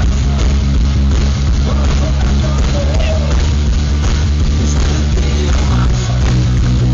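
Rock band playing live, heavy bass well to the fore, recorded from within the audience.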